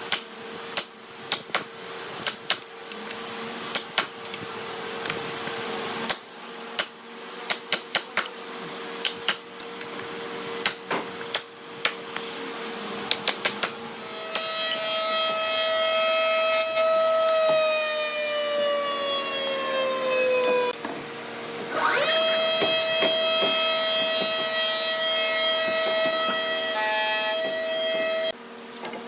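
Electric power tool in a woodworking shop, over a steady machine hum, with a series of sharp knocks through the first half. About halfway in, a high-pitched motor whine starts, sags in pitch over a few seconds and drops out, then spins back up and holds steady until near the end.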